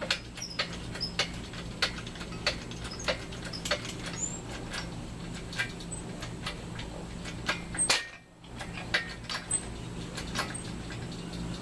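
Hand tools working on the engine: a series of sharp clicks, roughly one every half second to second, over a steady low hum, with one louder knock about eight seconds in.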